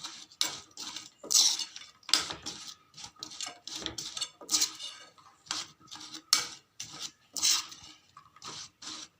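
A spoon stirring fried gram-flour pieces through thick jaggery syrup in a metal kadai, with irregular clinks and scrapes against the pan, several a second.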